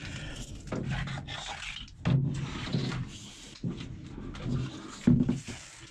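Handling noise of a solar panel being moved by hand: its aluminium frame and cables rubbing and scraping, with a few dull knocks about two, three, four and a half and five seconds in.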